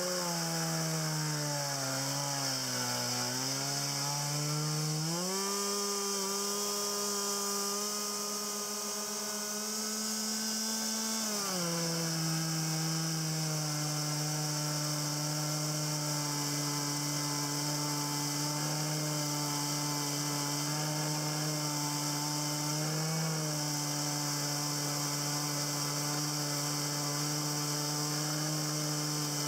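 Husqvarna 40cc two-stroke chainsaw with a 16-inch bar running steadily under load while ripping a board lengthwise along a log in a homemade chainsaw mill. Its engine pitch sags over the first few seconds, climbs higher about five seconds in, then drops back about twelve seconds in and holds steady for the rest.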